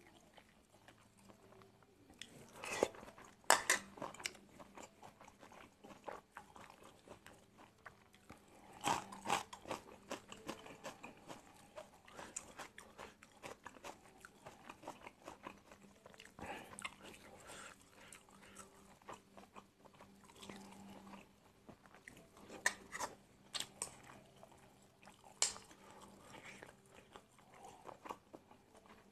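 Close-up chewing and eating: a person chewing mouthfuls of stir-fried angled luffa with egg, wet mouth sounds broken by scattered sharp clicks and taps, a handful of them louder.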